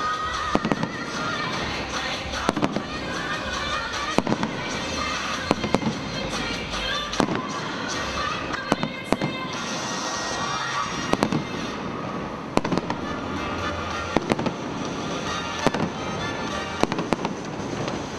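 Fireworks display: aerial shells bursting with sharp bangs about every one to two seconds, over a steady bed of music.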